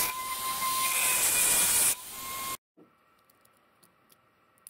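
Small handheld rotary tool running with a high whine and hiss as its bit drills into the underside of a Matchbox toy motorcycle, where the rivet holding the base sits; the pitch sags under load. It stops about two seconds in, leaving only faint clicks of the toy being handled.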